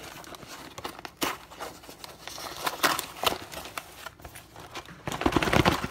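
Cardboard food carton being handled and opened by hand: irregular scraping, rustling and crinkling of paperboard, with a louder stretch of handling noise near the end.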